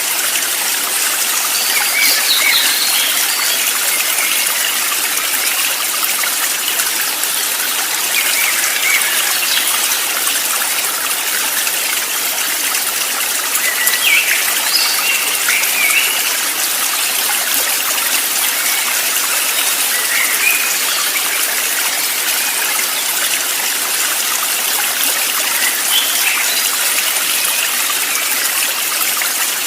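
Steady rush of a flowing stream, with short bird chirps now and then: near the start, around the middle, and near the end.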